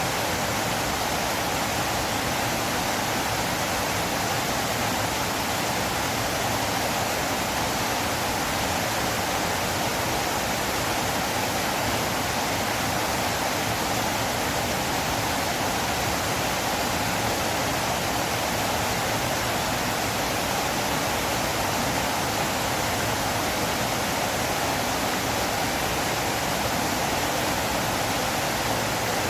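River water flowing: a steady, even rushing that doesn't change.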